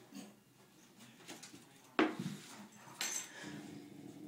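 Animal sounds from a black Labrador and a Bengal cat facing off on a staircase. There is a sudden sharp sound about two seconds in, a second burst a second later, then a low steady sound.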